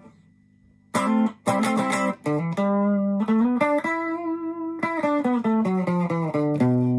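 Fender Japan ST62 Stratocaster electric guitar played through a Marshall Class5 amp: a single-note melodic line of picked notes, starting about a second in. The notes ring out with long, even sustain in a fairly clean tone, ending on a long held low note.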